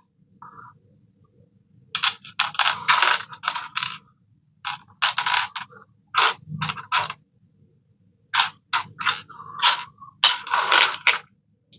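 Lego pieces and their plastic packaging being handled: runs of short plastic clicks, rattles and rustles in three bunches, over a faint low steady hum.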